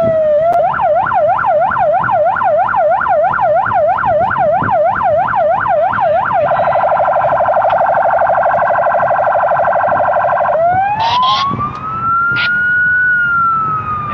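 Electronic siren of a Santa Fe police patrol car switching through its tones: a falling wail, then a fast yelp of about four sweeps a second, then a very rapid warble, then a slow wail that rises and starts to fall. A few short clicks come just after the change to the wail, about eleven seconds in.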